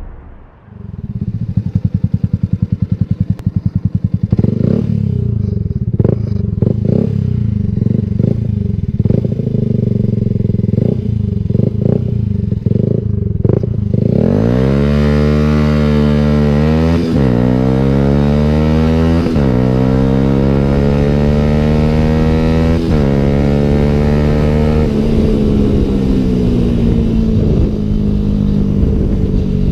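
Yamaha YZF-R125's single-cylinder four-stroke engine through a Danmoto aftermarket exhaust, running at low revs for the first half. About halfway in it goes to hard acceleration: the revs climb and drop back with each of three upshifts, then settle to a steadier note near the end.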